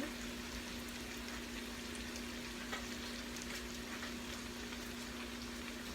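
Curry chicken pieces and freshly added garlic and green onion frying in a skillet: a steady, faint sizzle with a few small crackles, under a steady low hum.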